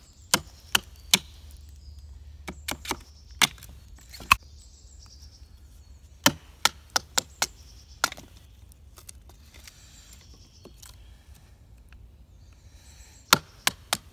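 Wooden mallet striking the spine of a knife, batoning the blade down through a small log to split it: sharp wooden knocks in irregular clusters, fainter taps in the middle and a fresh run of knocks near the end.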